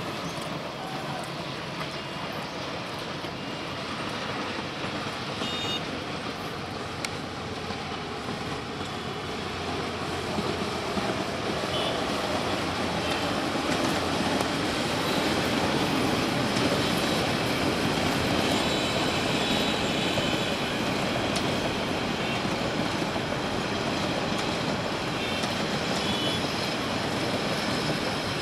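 Diesel-hauled passenger train running past along the track: a steady rumble of engine and wheels on rail that grows louder about ten seconds in and stays loud.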